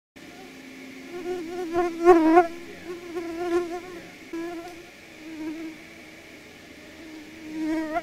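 A flying insect buzzing close past the microphone, a wavering buzz that swells and fades as it circles. It is loudest about two seconds in and swells again near the end.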